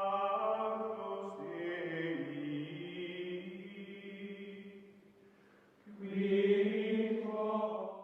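Outro music of held, choir-like chords that fade away about five seconds in, followed by a final chord that cuts off abruptly.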